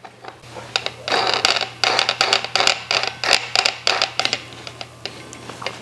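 Metal scraping and clicking as a coarse grit-16 abrasive disc is screwed by hand onto the threaded steel extension shaft of an angle grinder that is switched off. The strokes come in an irregular run, starting about a second in and stopping after about four seconds.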